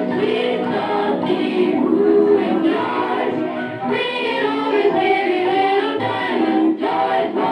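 Music with singing, steady and loud throughout.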